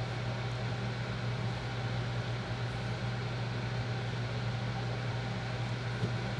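A steady low machine hum with an even hiss above it, unchanging, with no distinct knocks or strokes.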